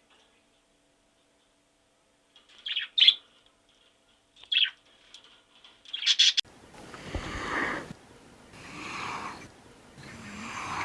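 Animal sounds: a few short, high chirping calls, then, after an abrupt change about six seconds in, three long breathy snorts or exhalations.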